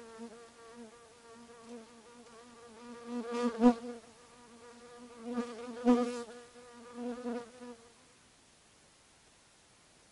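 A flying insect buzzing: a wavering hum that swells loud twice as it passes close, about a third of the way in and again just past halfway, then fades out a couple of seconds before the end.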